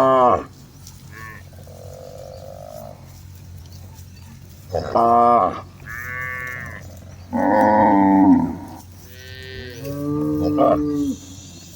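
A herd of cattle mooing repeatedly. Several loud calls come one after another in the second half, some overlapping, with one short call right at the start.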